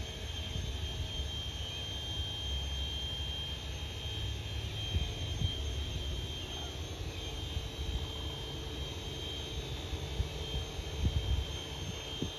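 Jet airplane passing high overhead: a steady, low distant rumble.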